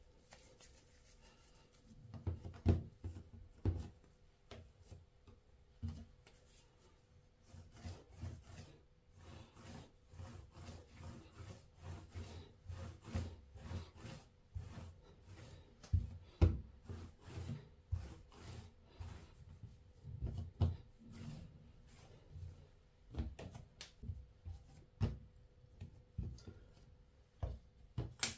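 Hands rolling a piece of yeast dough back and forth under flat palms on a smooth work surface, shaping it into a long rope: irregular rubbing and soft thumps of palms and dough against the board.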